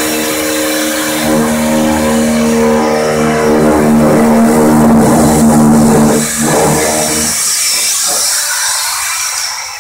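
Handheld electric metal shear running and cutting through the car's sheet-steel roof: a steady motor whine with the hiss of shearing metal. It dips briefly about six seconds in, then stops about seven and a half seconds in, leaving a noisy rattle as the cut roof panel is lifted out.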